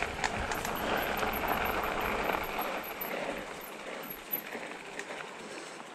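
Specialized Turbo Levo electric mountain bike rolling along a trail: a steady rush of tyre noise on dirt and gravel with scattered rattling knocks from the bike, louder in the first half.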